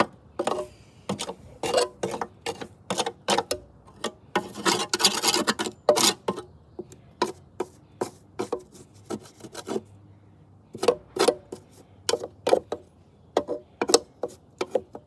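Hand file scraping along the edge of a lawnmower blade mounted on the mower, sharpening it in short rasping strokes, roughly two to three a second, with sparser strokes in the middle stretch.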